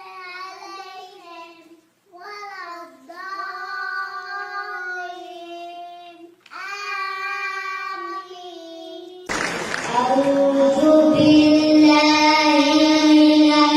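A young child reciting the Quran in a drawn-out melodic chant, holding long notes with short pauses between phrases. About nine seconds in, the sound cuts abruptly to a louder, hissier recording of chanted recitation.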